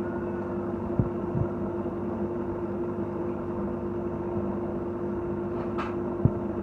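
Home aquarium's pump running with a steady electric hum under a wash of moving, bubbling water. A few soft low knocks come about a second in and again near the end, with a brief hiss just before the end.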